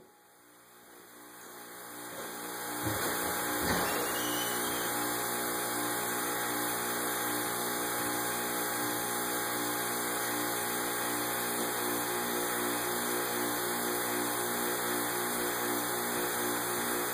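Vacuum pump running steadily, a machine hum with several steady pitches and a slow pulsing, rising in level over the first few seconds and then holding even.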